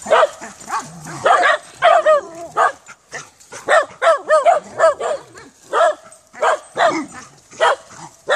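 A dog barking in a rapid series of short barks, about two a second, with a couple of brief pauses.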